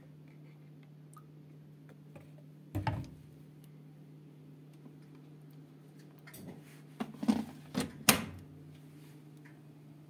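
Bosch washing machine on a curtain wash: a steady low hum, with a sharp knock about three seconds in and a quick run of clicks and knocks around seven to eight seconds in.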